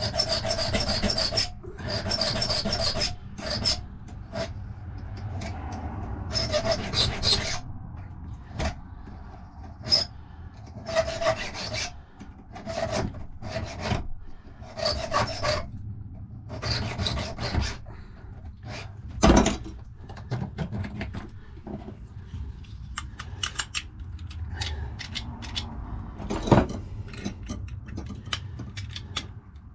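Hand file rasping on a safe key's metal bit in a run of uneven strokes, each about a second long, taking down the cuts that the key machine left slightly high. There are two sharp knocks, about 19 and 26 seconds in.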